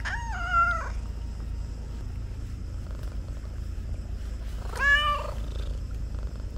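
An animal calling twice: two short pitched calls about five seconds apart, the first falling slightly in pitch, over a steady low rumble.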